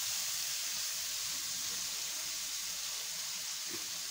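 Steady sizzle of chana dal and bitter gourd strips frying in hot oil with spices in a wok.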